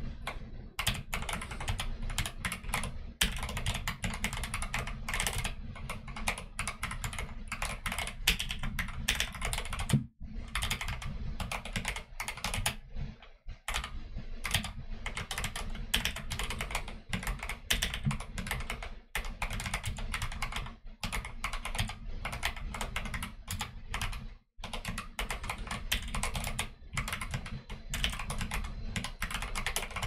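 Fast, continuous typing on a custom mechanical keyboard (YMDK Wings hotswap board with Akko Jelly Black linear switches and Akko Neon keycaps): a dense run of key clacks. There are brief pauses about ten, thirteen and twenty-four seconds in.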